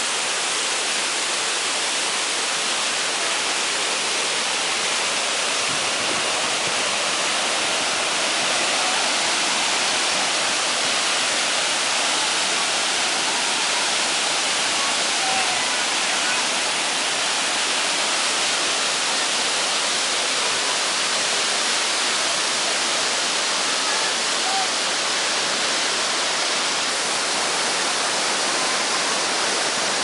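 Waterfall pouring onto rocks close by: a steady, even rush of white water that does not change.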